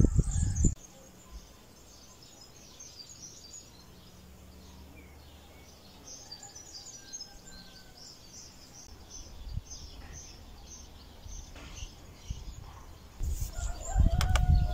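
Birds chirping in the open, with a loud rumble of wind on the microphone in the first second. Near the end come handling noise and several sharp clicks as the metal buckle clasps of a wicker basket are worked open.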